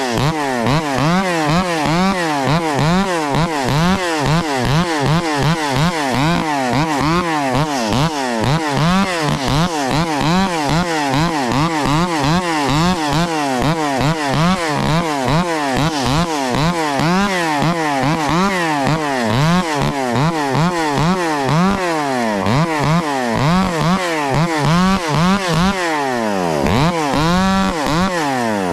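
Ported Echo 670 chainsaw with a muffler delete running loud at high revs. Its pitch wavers up and down a couple of times a second, then drops low briefly near the end before revving back up.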